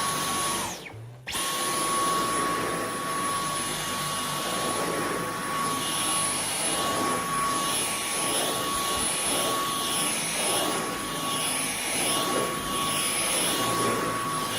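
Dyson V11 Torque Drive cordless stick vacuum running with a steady high motor whine. It cuts out briefly about a second in and starts again. From about six seconds in the sound rises and falls in regular strokes as the cleaner head is pushed back and forth over carpet.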